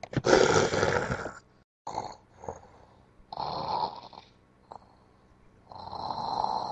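A loud, rough, breathy noise lasting about a second and a half and cut off abruptly, then three shorter rasping breath-like noises a second or two apart.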